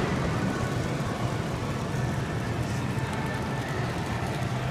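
Model train running on its layout: a steady low hum and rumble, with a single knock right at the start.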